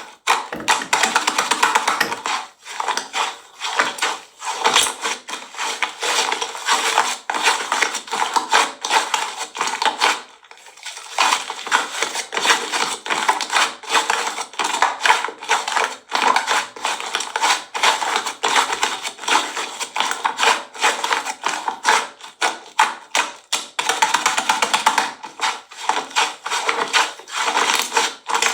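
Slime being squeezed and pressed by hand, a dense run of small clicks, pops and crackles with a brief pause about ten seconds in.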